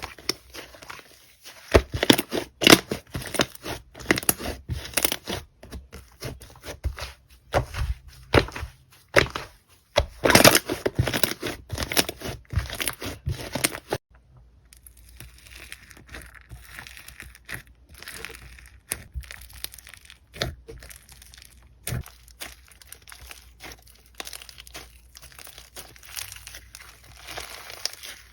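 Slime being squeezed and worked by hand, giving a dense run of sharp clicks and pops. The clicks are loud for the first half, stop abruptly about halfway through, then carry on softer and sparser.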